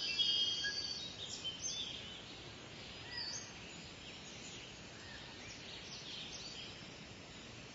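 Small birds chirping in short high notes, busiest and loudest in the first second, then scattered calls, over a steady outdoor background hiss.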